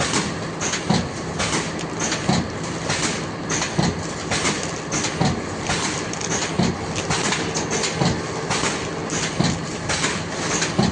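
Collar-type cup filler pneumatic packing machine running: a steady low hum under a rhythmic clatter of sharp mechanical knocks, roughly one to two a second.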